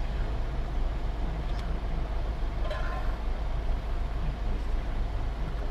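Steady low rumble of a car engine idling, heard from inside the stopped car.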